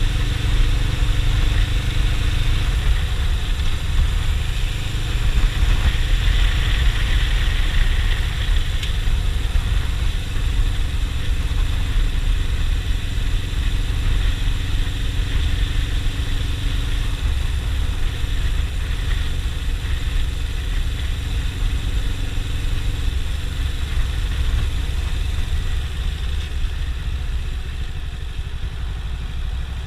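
Suzuki GS500E's parallel-twin engine running at a steady pace under way, mixed with heavy low wind rumble on the camera's microphone; it grows a little quieter near the end.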